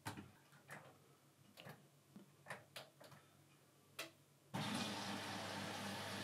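A washing machine being started: a few faint, scattered clicks, then about four and a half seconds in a steady rush of water filling the machine begins.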